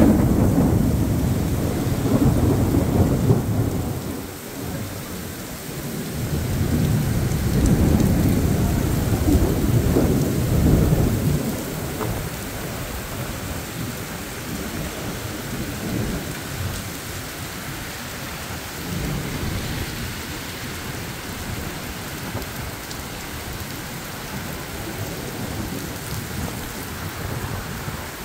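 Heavy rain pouring steadily in a thunderstorm, with two long rolls of low thunder in the first ten seconds or so, then the rain alone.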